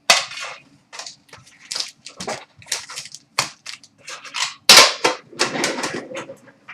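Foil trading card pack wrappers crinkling and tearing open in a run of irregular sharp crackles, loudest about five seconds in.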